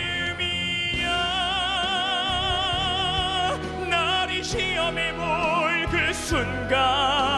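A man singing a musical-theatre ballad through a handheld microphone in a full, operatic voice, holding long notes with wide vibrato, over instrumental accompaniment.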